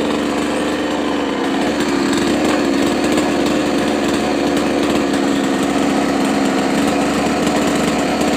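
Chainsaw running at a steady high speed while cutting a coconut palm.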